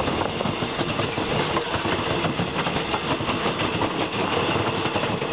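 Eastern & Oriental Express stainless-steel passenger carriages rolling past close by. The wheels run on the rails with a steady rumble and a dense run of small clicks.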